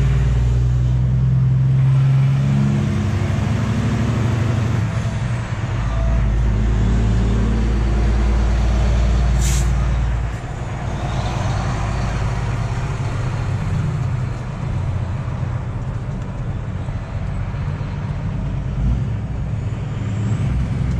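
Semi truck's diesel engine running during a slow U-turn, its low drone growing heavier for about five seconds in the middle and then easing off. A short, sharp air hiss cuts in once, about nine and a half seconds in, typical of the truck's air brakes.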